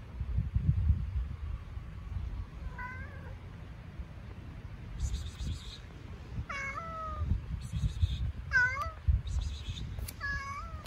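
Domestic cat meowing four times, each meow rising then falling in pitch, the first faint and the later three louder, over a low rumbling noise with a few dull thumps.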